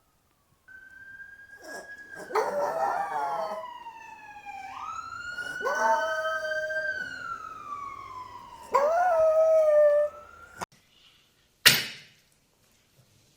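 Bolognese dog howling along with a wailing siren. The siren's slow falling and rising tone runs under three short howls, then cuts off suddenly, and a single sharp click follows near the end.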